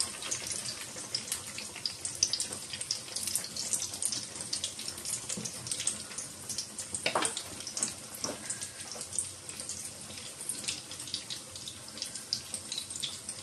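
Egg-coated potato cutlets shallow-frying in hot oil in a nonstick pan: a steady sizzle full of fine crackling pops as they brown. One louder knock comes about seven seconds in.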